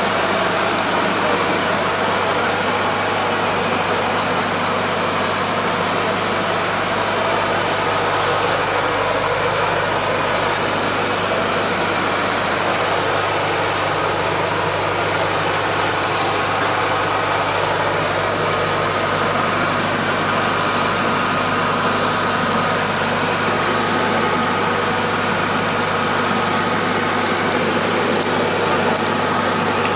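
Kubota DR575 five-row combine harvester running steadily while cutting rice, heard from inside its cab: a constant low diesel engine hum under the steady whir of the machinery.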